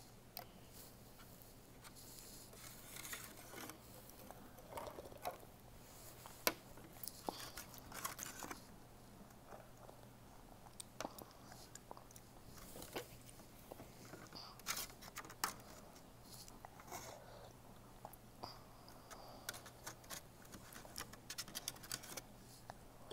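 Faint scattered clicks and scrapes of a plastic spoon stirring and scooping in a plastic tray of jello-ball candy, with small chewing sounds close to the microphone.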